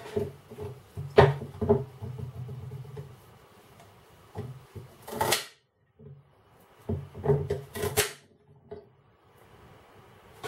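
Kitchen knife chopping a celery stalk on a chopping board: a few sharp, uneven knocks of the blade striking the board, with a short break about halfway.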